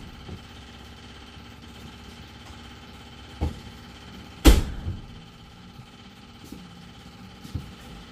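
A loud clunk about halfway through, with a lighter knock a second before it and another near the end, over a faint steady hum.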